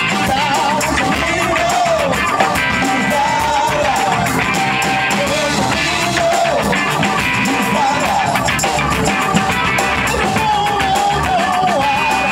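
Live funk-rock band playing: electric guitar, bass guitar and drum kit, with a lead melody line that bends in pitch over the steady beat.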